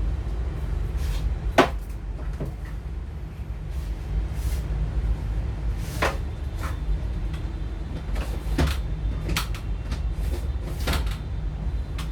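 Scattered sharp clicks and light knocks, about six prominent ones, of small phone parts and tools being handled during a smartphone teardown, over a steady low rumble.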